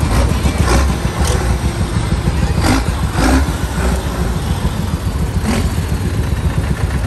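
Vintage tractors driving past close by, first a Lanz Bulldog with its single-cylinder two-stroke engine, then a Steyr tractor, with a deep, uneven engine rumble throughout. A few short sharp sounds rise above it, the loudest about two and a half and three and a half seconds in.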